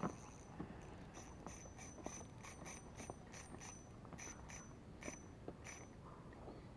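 A knock at the start, then the drag of a spinning reel giving line in short, irregular runs of faint clicks, about one to three a second, as a fish pulls against the bent rod.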